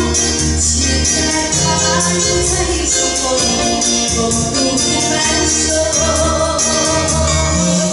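Music from a band song: sustained instrumental tones over a steady pulsing bass, with constant bright high percussion.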